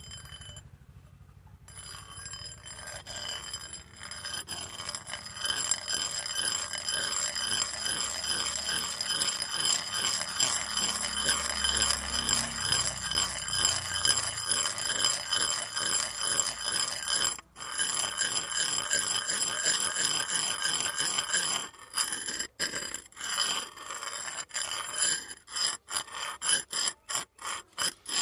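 Metal rod scraped in rapid strokes, ringing with a steady set of high tones; over the last few seconds the scraping breaks up into separate short strokes.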